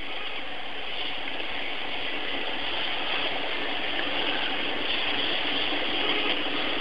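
Shower water running: a steady hiss of falling water.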